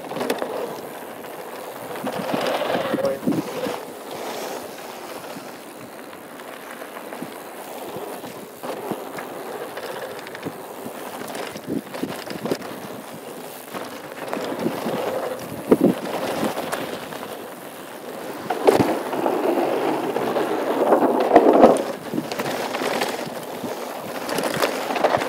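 Full-suspension mountain bike (2013 Norco Truax) riding fast down a dirt bike-park trail: tyres rolling over packed dirt and loose stones, with frequent knocks and rattles of the bike over bumps. The noise swells louder in several stretches, most of all about two-thirds of the way in.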